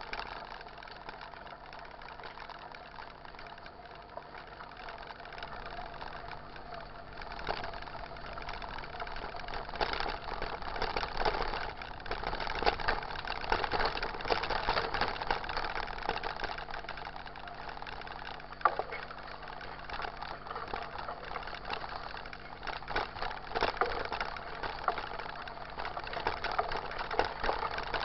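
Mountain bike rolling over a wet, muddy dirt road, picked up by a camera mounted on the bike: steady rattling of the bike with tyre noise and rough clatters over bumps, growing louder and rougher about ten seconds in.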